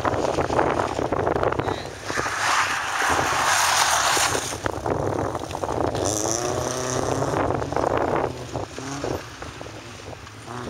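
Honda Civic coupe's four-cylinder engine revving hard as the car slides around tyre markers on concrete. Its tyres scrub with a loud rushing noise between about two and four seconds in, then the engine climbs in pitch twice in the second half.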